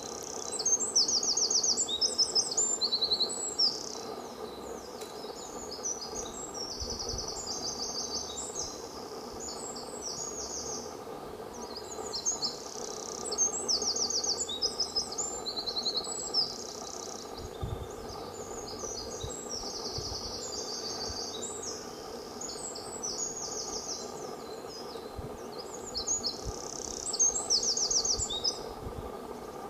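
A small songbird singing long, complex phrases of rapid high trills and buzzy notes, in three main bursts spaced roughly twelve seconds apart with scattered notes in between, over a steady low background hum.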